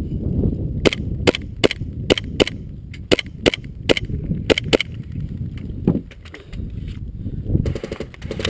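Airsoft guns firing: about a dozen sharp single shots in quick, uneven succession, then a faster, even rattle of rapid fire near the end.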